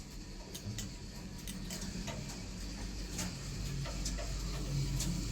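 Hydraulic passenger lift: a low, steady hum from the car with scattered light clicks at uneven intervals, slowly getting louder.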